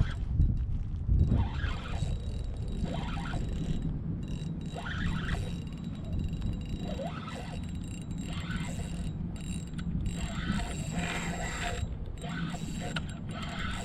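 Spinning fishing reel cranked in irregular spells, its gears ticking and whirring as line is retrieved on a hooked redfish, over a steady low rumble.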